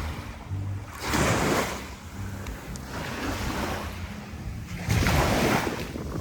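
Waves breaking and washing on a beach: two louder surges about four seconds apart over a steady wash, with some wind rumble on the microphone.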